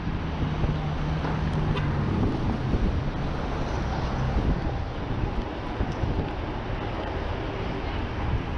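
Wind rushing over the microphone of a camera on a moving bicycle, over the hum of city traffic; a low engine drone nearby fades out about two seconds in.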